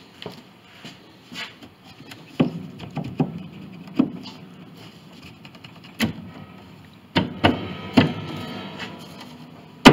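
Wooden knocks and clunks as the carved wooden front leg of an 1886 Steinway upright is worked loose from the case, with some wood-on-wood scraping in the second half. The sharpest, loudest knock comes near the end.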